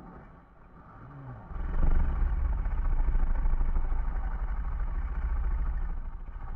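Snoring beetle toy playing its snore through its small speaker, slowed and distorted by nearly flat batteries. A quieter intake builds for about a second and a half, then a long, loud, low, rough snore holds through the rest.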